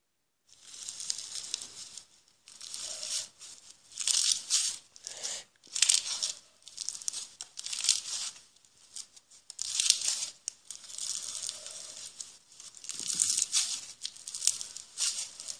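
Bead-filled crunchy slime squeezed and kneaded by hand, giving a run of irregular crunchy, crackling squishes one after another, starting about half a second in. It is heard as playback through a TV screen's speaker.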